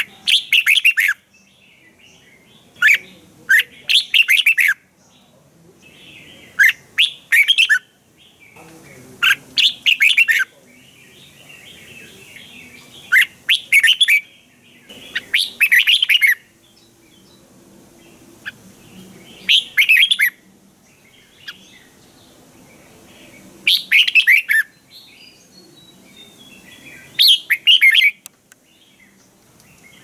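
Red-whiskered bulbul singing: short, loud, whistled song phrases about every three to four seconds, with softer chattering between them.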